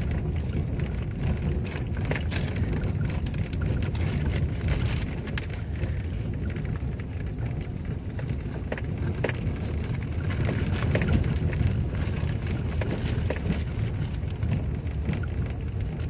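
Car driving slowly over a rough, unpaved dirt road, heard from inside the car: a steady low rumble with frequent scattered clicks and knocks.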